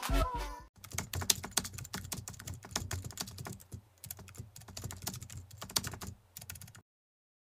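Computer keyboard typing sound effect: a fast, irregular run of key clicks that goes on for about six seconds and stops abruptly. The tail of music cuts off in the first second.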